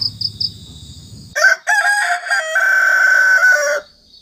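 A rooster crowing once: a loud call starting about a second and a half in, broken at first and then a long held note that stops shortly before the end. High-pitched small bird or insect chirps come before it, with a faint low hum.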